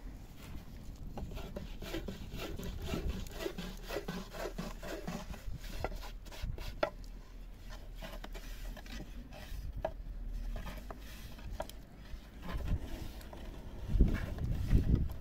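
Continuous rubbing and scraping, dotted with light knocks and clicks, with a few heavier thumps near the end.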